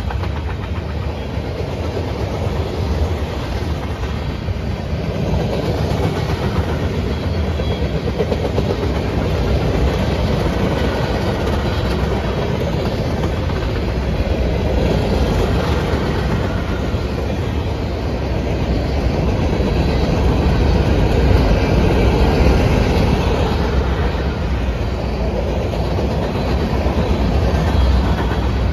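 Norfolk Southern freight train's covered hoppers and gondolas rolling past: a steady rumble of steel wheels on rail with clickety-clack over the rail joints.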